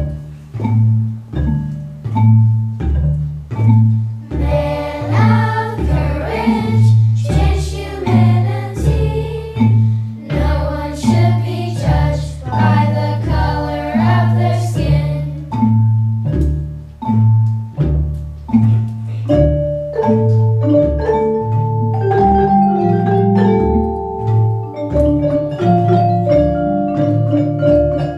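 School Orff ensemble of xylophones and other mallet instruments playing a steady repeating bass pattern. Children sing over it for about ten seconds in the middle, and held melody notes come in near the end.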